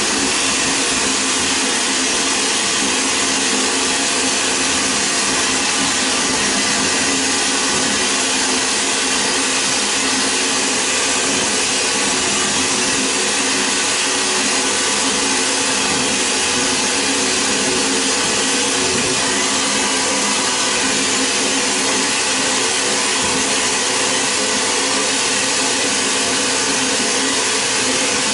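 Vapor blasting gun spraying a water-and-media slurry with compressed air: a steady, loud hiss with a steady hum beneath it.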